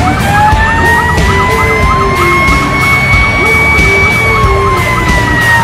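Fire engine sirens heard from the cab while running with lights and sirens. A siren tone that has just wound up holds steady and high, then begins to wind down near the end, over a faster, rapidly cycling siren tone.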